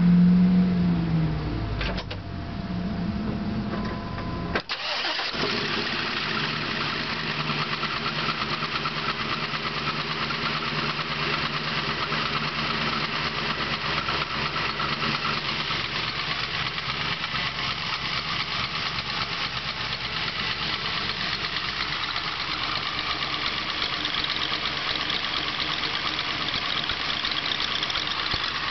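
383 cubic-inch LSX V8 engine running, loud at first and settling over the first couple of seconds. After a sudden break about four and a half seconds in, it idles steadily with a fast, dense ticking clatter, which the owner calls piston slap.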